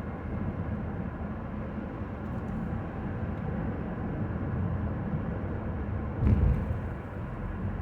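Steady low rumble of road and engine noise inside a moving vehicle's cabin, with a brief louder low thump about six seconds in.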